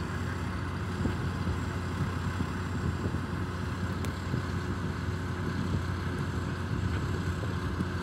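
Heavy machinery engine running steadily at a constant speed, a low even hum that neither rises nor falls.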